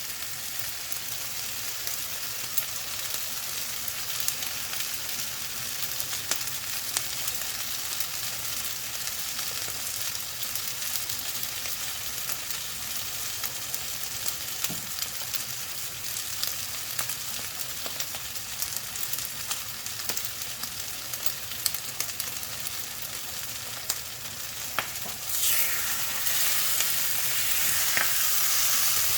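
Kimchi fried rice sizzling steadily in a hot pan, with scattered light ticks. The sizzle grows louder about 25 seconds in.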